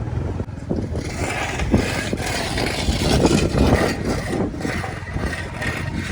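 Road traffic: a motor vehicle's engine running with a steady low rumble, growing louder and rougher toward the middle as it passes.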